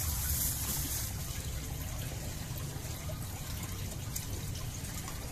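Steady trickling water with a low rumble underneath.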